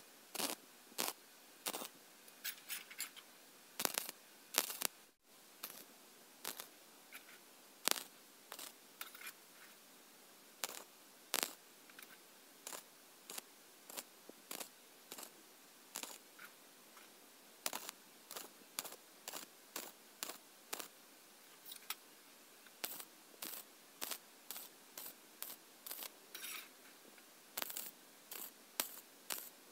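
Wire-feed (MIG) welder tack-welding a square hollow-section steel frame: many short bursts of welding arc, about one to two a second, each lasting only a fraction of a second.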